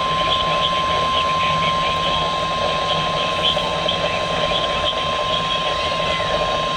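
NOAA Weather Radio warning alarm tone: one steady, unbroken high beep near 1050 Hz over a steady static-like hiss. It signals that a new warning, here a tornado warning, is about to be broadcast.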